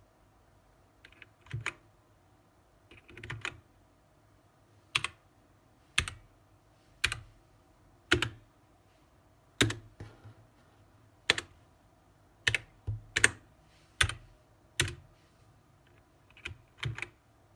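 Blitzwolf BW-KB1 mechanical keyboard with Gateron switches, its keys pressed one at a time, a sharp clack roughly once a second, now and then two or three in quick succession.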